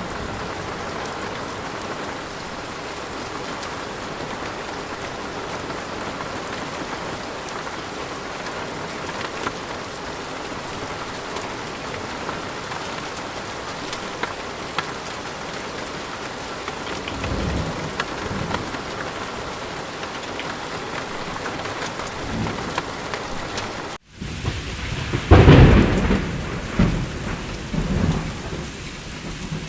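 Thunderstorm: steady rain with a low rumble of thunder about halfway through. Near the end the sound cuts out for an instant, then a loud thunderclap hits and rolls on in rumbles.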